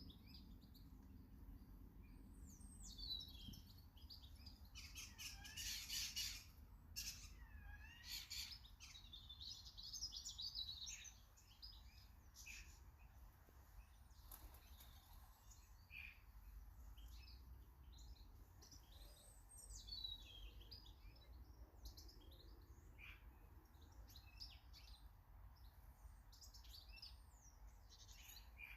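Small garden songbirds chirping and twittering, many short overlapping calls, busiest in the first third and sparser after, over a faint steady low hum.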